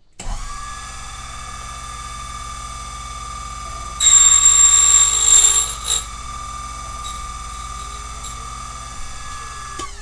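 Silca Flash 008 key duplicator switched on, its motor and cutter wheel running with a steady whine. About four seconds in, the cutter bites into a brass KW1 key blank for about two seconds, a louder, shrill grinding as the first cut is made, then the machine runs free again and is switched off near the end.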